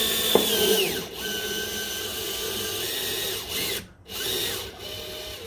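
Power drill driving screws into a plastic case, its motor running in bursts: it slows and cuts about a second in, runs again, stops just before four seconds, then starts once more more quietly.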